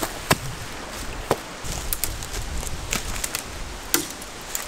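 Rocks knocking against each other as they are picked up and set down on stony ground: several sharp, separate clacks about a second apart. Wind rumbles on the microphone underneath.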